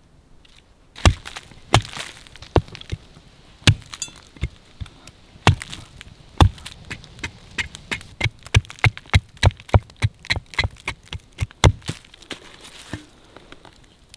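Hatchet chopping a hard chaga conk into small chunks on a wooden log round: sharp chops, a few spaced out at first, then a quicker run of about two to three a second before they stop.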